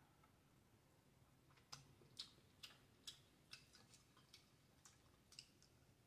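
Near silence broken by faint, irregular wet clicks from eating a seafood boil by hand, about a dozen over three or four seconds in the middle.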